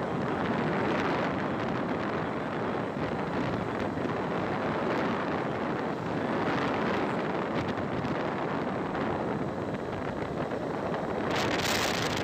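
Wind rushing over the microphone of a moving vehicle on a highway, mixed with road noise. It swells and eases every few seconds, with a harsher gust near the end.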